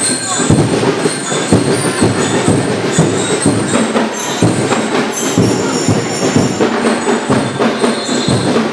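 A marching drum and lyre corps playing loudly, with a dense run of drum beats and the ringing of bell lyres.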